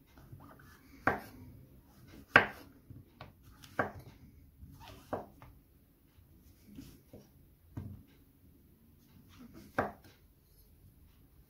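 Chef's knife slicing button mushrooms on a wooden cutting board, the blade knocking on the board about six times, a second or two apart.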